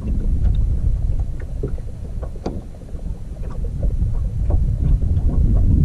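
Wind buffeting the microphone in gusts, a heavy low rumble that rises and falls and swells near the end, with small scattered clicks and taps over it.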